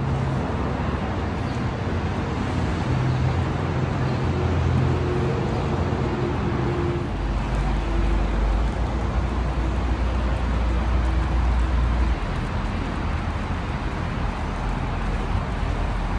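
Car driving along a road: steady tyre and road noise, with a low hum that shifts in pitch a few times.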